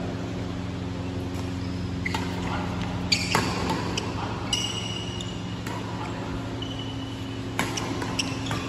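Doubles badminton rally on a synthetic court: a string of sharp pops as rackets strike the shuttlecock, with brief high squeaks of shoes on the court between them. A steady low hum runs underneath.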